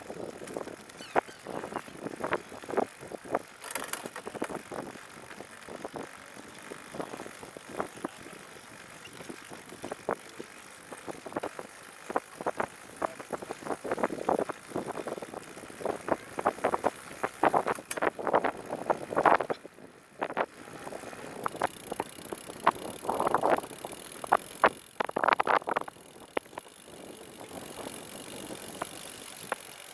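Recumbent trike rolling along the path, its frame and drivetrain giving off irregular clicks and rattles over the road surface, with two denser bursts of clatter about three-quarters of the way through.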